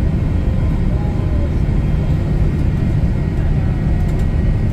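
Steady low roar inside an airliner's cabin during the descent toward landing: engine and airflow noise at an even level.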